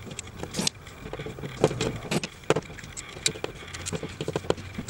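Scattered small clicks and scrapes from hands handling a wall light switch and its copper wire, with a screwdriver working on the switch's terminal screw near the end.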